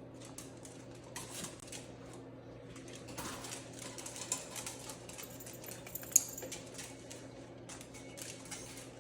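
Dogs' claws clicking and tapping irregularly on a hard floor as several small dogs move about, with one sharper click about six seconds in, over a steady low electrical hum.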